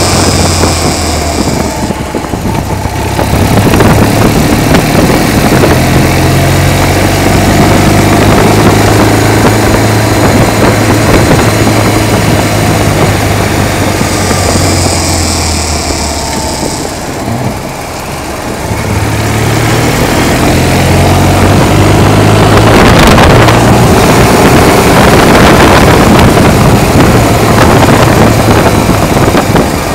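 Motorcycle-with-sidecar engine running at road speed. The engine note eases off about two seconds in and again a little past the middle, then picks back up each time.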